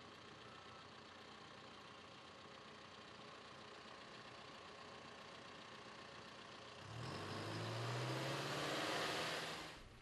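John Deere 310K backhoe loader's diesel engine idling faintly. About seven seconds in it gets louder for a few seconds, its low note rising slightly as the engine speeds up, then fades.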